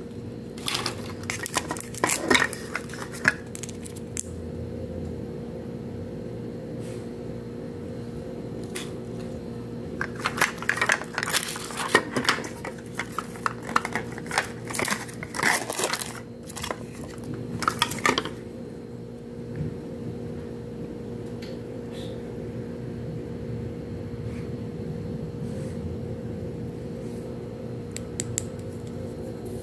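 Hands working a plastic Mini Brands capsule ball and its printed wrappers: plastic clicks, taps and crinkling, in bursts during the first few seconds and again from about ten to eighteen seconds in, over a steady low hum.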